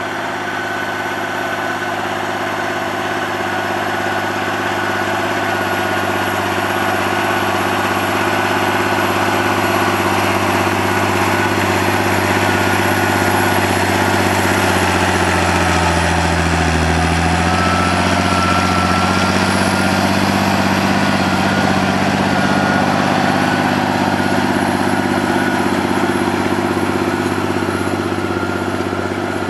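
John Deere 8200 tractor's six-cylinder diesel engine running steadily under ploughing load. It grows louder as the tractor approaches, and its pitch dips as it passes about halfway through.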